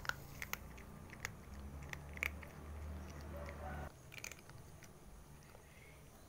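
A calico cat crunching dry kibble, a scatter of sharp crunches at irregular intervals. A low hum sits underneath for a couple of seconds and cuts off suddenly about four seconds in.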